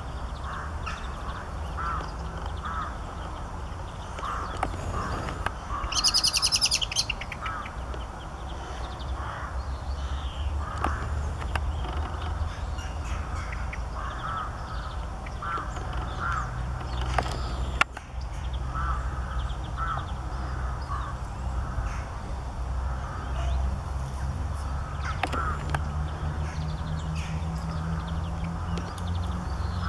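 Wild birds calling: short calls repeated again and again over a steady low rumble, with one loud, harsh rattling burst about six seconds in.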